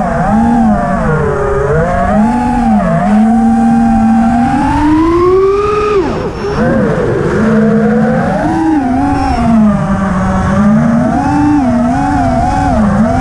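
FPV racing quadcopter's brushless motors and propellers whining from the onboard camera, the pitch rising and falling constantly with the throttle. The whine climbs steadily for a couple of seconds to its highest pitch about six seconds in, then drops sharply as the throttle is cut.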